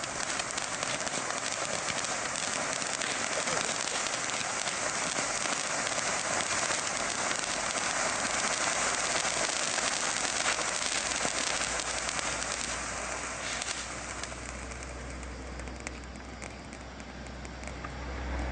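Star Shower firework fountain burning with a steady hiss and dense fine crackle, dying down over the last few seconds. A low rumble builds toward the end.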